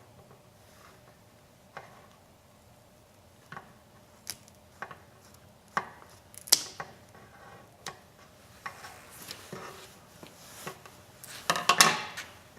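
Cutting through a plucked wood duck's neck: scattered short clicks and knocks, then a burst of crunching near the end as the blade goes through.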